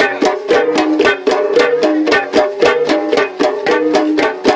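Flat gongs played by hand in a fast, even rhythm of short, damped strokes, about five a second. The notes step between a few pitches in a repeating melodic pattern.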